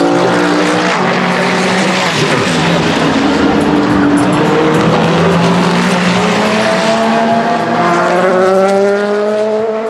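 LMGT3 race car engines running past at speed, silenced by 100 dB-limited mufflers. In the last few seconds an engine note climbs steadily as a car accelerates.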